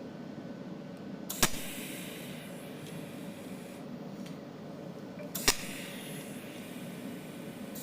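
Cold welding machine spot-welding copper: two sharp snaps of the pulsed arc, about four seconds apart, the first trailed by a hiss for a couple of seconds, over a steady low machine hum.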